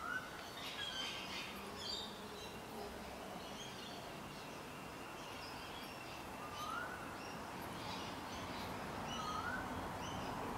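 Outdoor birdsong: birds chirping throughout, with a short rising whistle heard three times, at the start, about six and a half seconds in and about nine seconds in.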